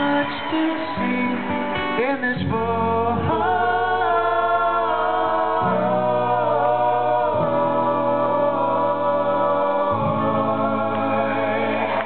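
Male voices singing a slow passage in close harmony with an acoustic guitar, holding long chords that change every second or two, live in a concert hall.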